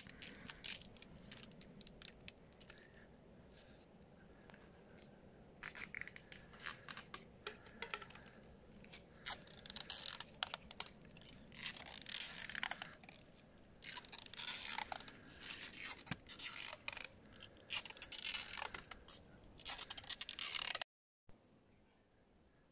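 Irregular rustling, crackling and scraping noises that come and go in clusters. They cut off suddenly shortly before the end, after which it is much quieter.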